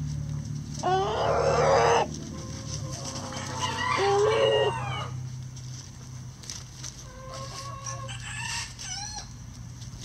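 A rooster crowing twice in the first half, followed by softer hen clucks and short calls from the flock.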